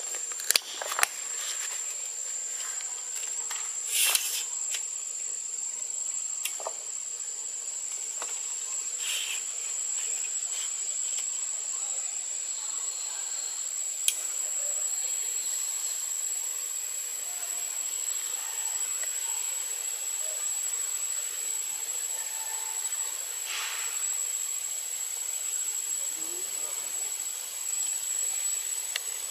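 Insects droning at one steady high pitch, with a few short crackles, the loudest about 4 seconds in.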